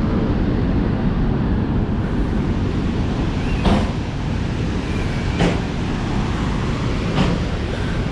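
Steady roar of a large waterfall, with wind buffeting the microphone. Three footsteps knock on the stairs, slow and evenly spaced, in the second half.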